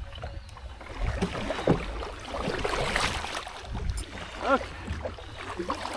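Rustling and handling noise with small clicks, strongest in the first half, over a low rumble, with a brief vocal sound about four and a half seconds in.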